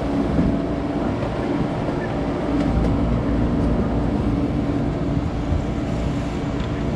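Boat engine running steadily, a low rumble with a constant hum.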